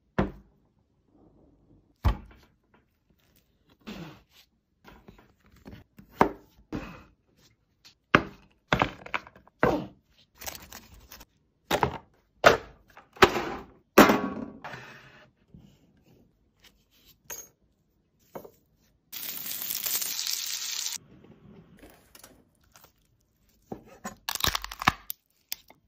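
Seafood being prepared by hand: a long series of separate sharp knocks, cracks and thunks from cutting and cracking lobster and crab. About two-thirds of the way in comes a steady hiss lasting about two seconds, and near the end a quick run of knife chops on a plastic cutting board.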